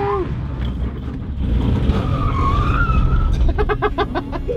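Inside a Daihatsu Mira kei car spinning out with PVC pipe rings on its rear tyres: steady engine and road rumble as the plastic-sleeved rear wheels slide across the asphalt, with a short wavering squeal in the middle and a rapid fluttering chatter near the end.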